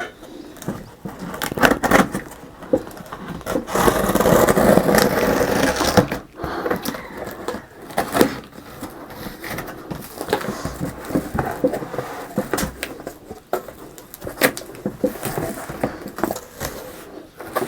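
A cardboard box being opened and a PC cabinet pulled out of its packing: irregular scraping and rustling of cardboard with scattered knocks and clicks, the scraping at its heaviest about four seconds in.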